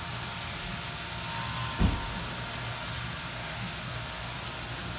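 Automatic car wash running: large foam brushes spinning against a vehicle with water spraying, a steady hiss over a low machine hum. One low thump a little under two seconds in.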